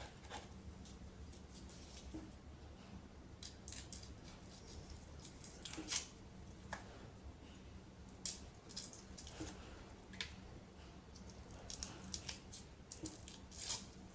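Food-preparation handling sounds: scattered light clicks and crisp snipping or rustling, irregular and without a steady rhythm, with a few sharper clicks.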